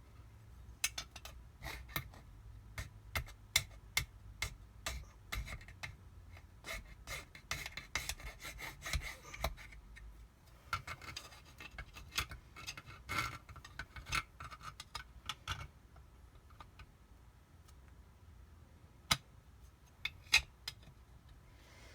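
Hand file scraping metal on a jet-ski impeller pump part in quick, irregular strokes, filing off damage. The filing stops after about 16 seconds, and two sharp clicks follow near the end.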